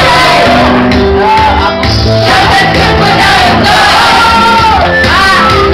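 Loud music through a PA loudspeaker, with a group of girls singing and shouting along into a microphone.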